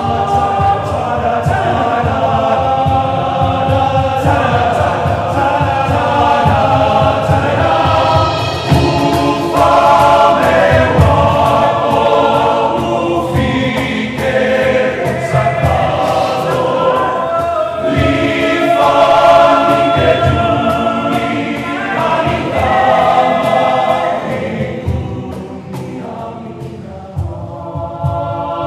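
Male vocal group singing together loudly, with a drum beating under the voices; the singing drops in volume briefly near the end.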